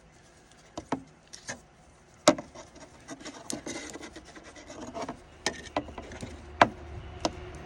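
Vinyl electrical tape being pulled off the roll and wrapped around a wiring harness: intermittent rasping peels with sharp clicks of handling, the loudest a little over two seconds in and again near the end.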